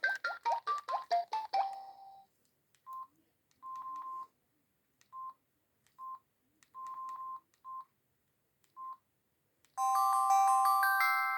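Samsung SGH-E600 mobile phone ringtones played one after another: a quick run of falling plinking notes that ends about two seconds in, then a string of short and long beeps all on one pitch, and near the end a new tone starts with ringing notes stacked higher and higher.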